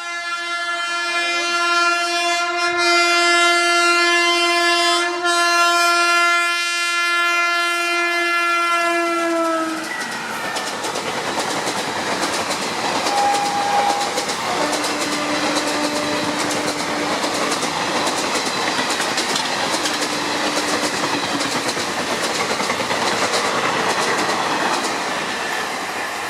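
WAP-4 electric locomotive's horn sounding one long, continuous blast for about ten seconds as the express approaches at speed, a warning to track workers, its pitch dropping slightly just before it stops. Then the train's coaches run through, their wheels clattering over the rail joints.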